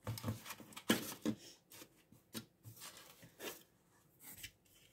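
Small plastic pots of young African violets being handled and moved about on a shelf: irregular light clicks, taps and rustles of plastic and leaves, loudest about a second in.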